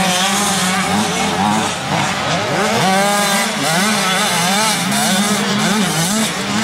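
Several 85cc two-stroke motocross bikes racing, their engines revving up and down as the riders shift and work through the corners, one climbing sharply in pitch about three seconds in.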